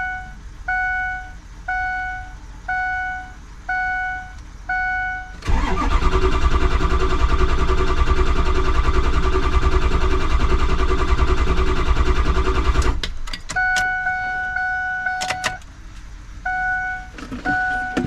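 A Ford F250's 6.0 Power Stroke diesel cranking on its starter motor for about seven seconds without catching, on the first start attempt after a standpipe replacement with a battery the owner calls a little low. A cab warning chime pulses steadily before and after the cranking.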